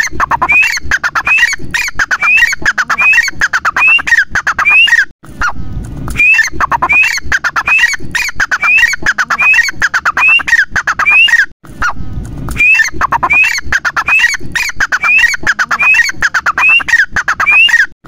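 Grey francolin (teetar) calling loudly: a fast, repeated series of shrill rising-then-falling notes, two to three a second, in long bouts broken by brief pauses about five and eleven and a half seconds in.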